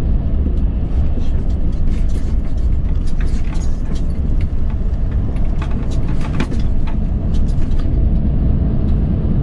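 Inside the cab of a Volvo FM 500 truck under way: the diesel engine and road noise make a steady low rumble, with scattered sharp clicks and rattles from about one to eight seconds in.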